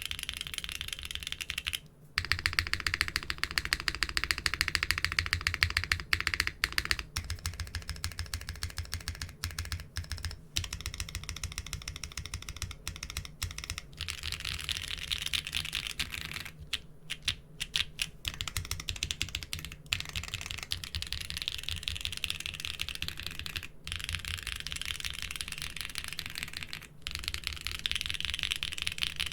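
Fast, continuous typing on a modded mechanical keyboard with doubleshot keycaps: a dense stream of keystroke clicks and clacks, broken by a few short pauses.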